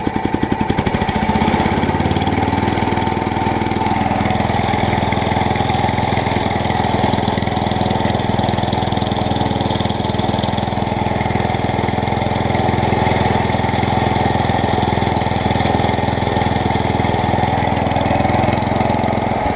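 Small petrol lawnmower engine running steadily. The blade is not turning because the blade control button is not being held down.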